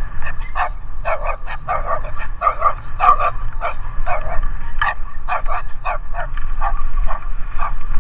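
Dogs barking over and over, about three or four barks a second, with a steady low rumble underneath.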